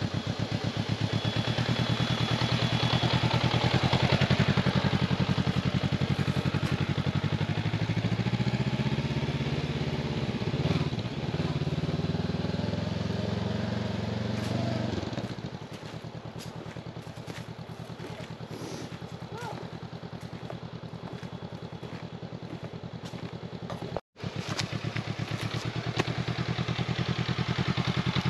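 Honda CB500X's parallel-twin engine running at low revs while riding a rough track, steady for the first half, then dropping to a quieter, lower-revving run about halfway through, with scattered knocks and crunches.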